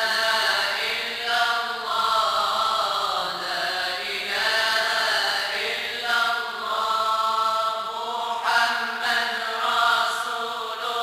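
Voices chanting Moroccan madih nabawi, devotional praise of the Prophet, in long held melodic phrases over a steady low held note.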